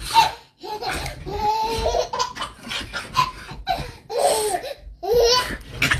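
A person laughing hard in high-pitched, repeated fits with brief breaks for breath.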